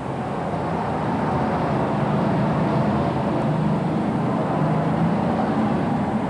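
Super stock pulling tractor's engine running hard at full power under load as it drags the weight sled down the track, a dense, steady engine noise that grows slightly louder after about a second.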